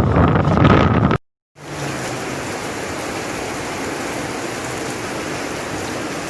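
Gusty wind buffeting the microphone, cut off about a second in. After a short gap there is a steady, even hiss of hail and rain falling.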